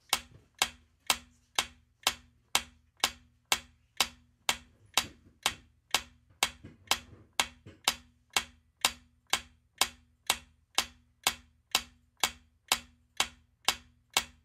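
Clock-style ticking sound effect counting down a quiz's 15-second answer time, even ticks about two a second.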